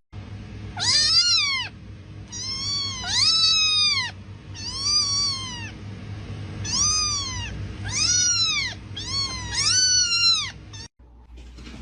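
A domestic cat meowing over and over, about eight drawn-out meows that each rise and then fall in pitch. The meowing stops abruptly shortly before the end.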